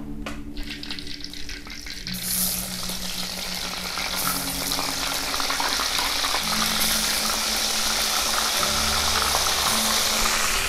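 Marinated tempe slices frying in hot oil in a wok, with a loud sizzle that starts about two seconds in and gets louder. A simple background melody plays underneath.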